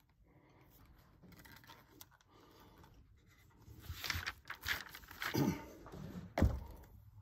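Handling noise: soft irregular scraping and rustling that starts a few seconds in, with one sharp knock near the end.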